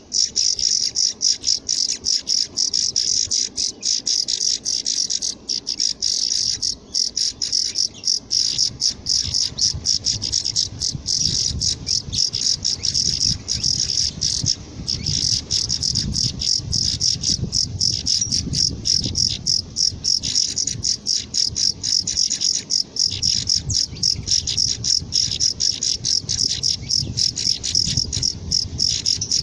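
Saffron finch nestlings begging: an unbroken stream of rapid, high-pitched cheeps.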